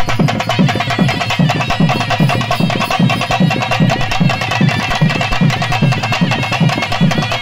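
Live procession drumming on barrel drums: a loud, fast, steady beat of about three strokes a second, with a held tone sounding above it.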